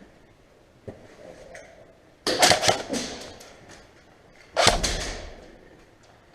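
Airsoft gun fired in two short bursts close by: a quick string of cracks about two seconds in, then a second, sharper burst a couple of seconds later.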